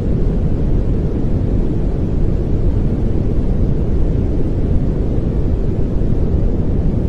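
Steady pink noise: an even, unchanging hiss with most of its weight in the low end, like a deep rumble.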